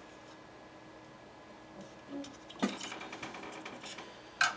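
Quiet small metal handling on an AR-15 barrel: faint ticks, a soft clink about two and a half seconds in, and a sharper click near the end, as the gas tube roll pin is worked out of the gas block and the steel gas tube is pulled free.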